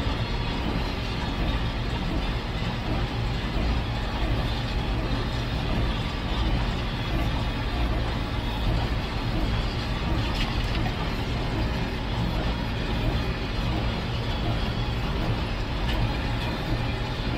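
Diesel engine of farm machinery running steadily at constant working speed, with a dense, even mechanical din.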